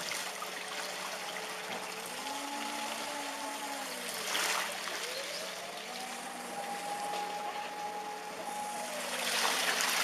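Tsunami floodwater rushing, with the horns of swamped cars going off by themselves as long tones that waver up and down in pitch. The water noise surges louder twice, around four and nine seconds in.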